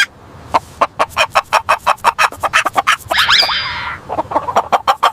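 Hen clucking in quick short clucks, with one longer falling squawk about three seconds in.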